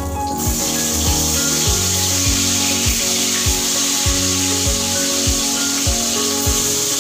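Small fish frying in hot oil in a wok: a steady sizzling hiss that starts suddenly just after the start, as the fish meet the oil. Background music with a steady beat plays underneath.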